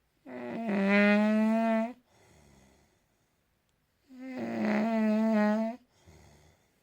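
A man snoring: two long, loud snores about four seconds apart, each followed by a quieter breath.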